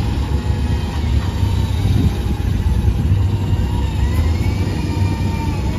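Heavy diesel engines of an SDLG L958H wheel loader and nearby dump trucks running in a steady low rumble, with a faint whine that wavers up and down in pitch.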